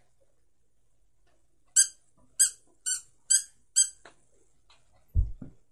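Squeaky plush dog toy squeezed by hand, giving five short high squeaks about half a second apart. Two dull thumps follow near the end.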